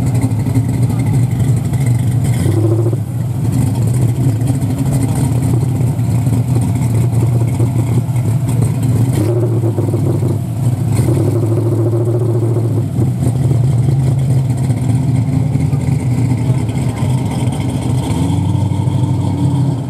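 De Tomaso Pantera's Ford 5.8 L Cleveland V8 running at low revs through its quad exhaust as the car creeps away, with a few short rises in pitch from light throttle. Near the end a second big V8, the 1965 Lincoln Continental's, joins as it rolls up.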